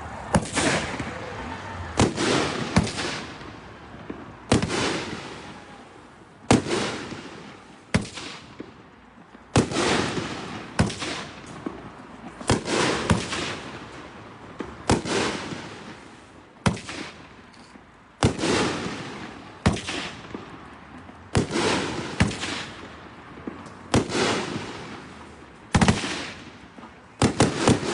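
A 12-shot 500-gram consumer fireworks cake firing its shots. A sharp bang comes every second or two, some in close pairs, and each fades out over about a second.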